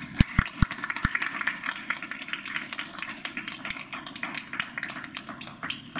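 Audience applauding: dense, irregular clapping, with a few low thumps in the first second.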